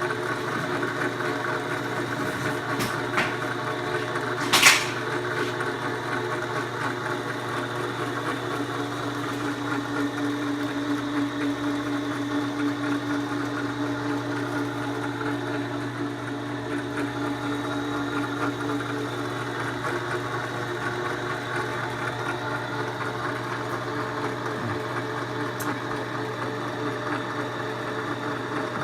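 Milling machine's electric spindle motor running steadily while a drill bit is fed into a broken bolt in a motorcycle exhaust flange; the bit is getting too much movement and not cutting cleanly. A short sharp screech about five seconds in, and a steady higher hum joins for several seconds in the middle.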